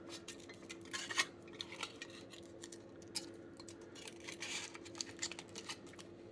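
Thin aluminium foil crinkling and crackling as fingers fold and press it around a Play-Doh coin, in faint irregular crackles, over a faint steady hum.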